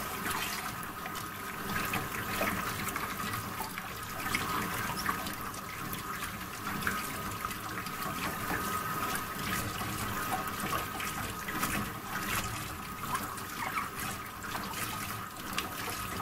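Tap water running steadily and splashing as a vacuum cleaner's filter is rinsed under it.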